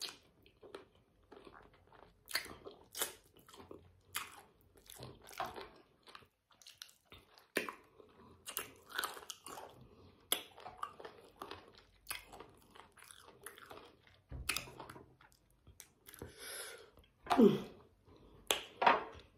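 Close-up chewing and biting on spicy sauced chicken feet: irregular wet mouth sounds and small crunches of skin and cartilage. Near the end comes one short voiced sound falling in pitch, the loudest moment.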